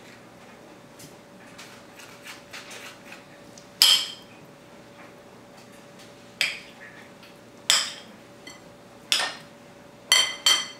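Metal spoon striking a ceramic bowl while cutting and scooping avocado: six sharp clinks from about four seconds in, the last two close together near the end. Before the first clink there are only faint soft handling sounds.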